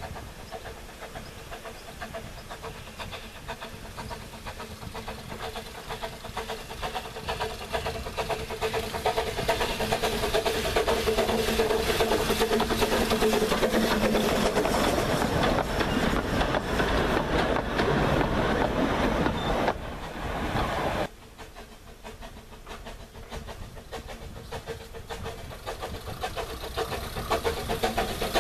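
Narrow-gauge steam train, the 1866 locomotive Dolgoch hauling four-wheeled wooden carriages, running past: the locomotive working and the carriages rattling over the track, growing louder as the coaches pass close by. About two-thirds of the way through the sound cuts off suddenly to a quieter approach of the engine, which builds again near the end.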